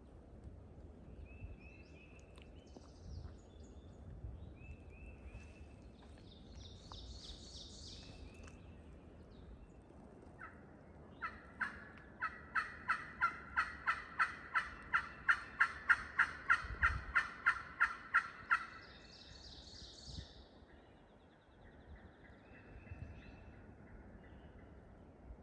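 A long, even series of turkey yelps, about three a second for roughly seven seconds, starting a little under halfway in. The yelps never change in tone, which the hunters take for another hunter on a call rather than a real hen.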